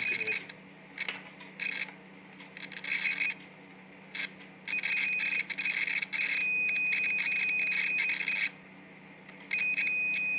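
Unity DT830D digital multimeter's continuity buzzer beeping as the probe tips touch: several short, broken beeps at first, then a long steady beep, a break of about a second, and a steady beep again near the end. The beep signals that there is no resistance between the probes.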